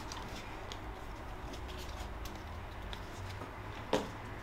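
Faint handling noise of trading cards and a booster pack: soft rustles and small taps, with one sharper tap about four seconds in.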